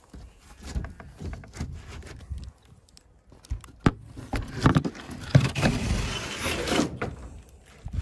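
Footsteps swishing through long grass, uneven and irregular, with a sharp knock just before the middle and a louder stretch of rustling and scraping near the end.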